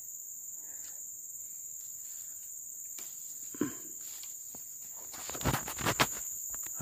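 Steady high-pitched insect drone, crickets or similar, from the streamside vegetation. Around five to six seconds in, a few sharp rustles and knocks close by are the loudest sounds.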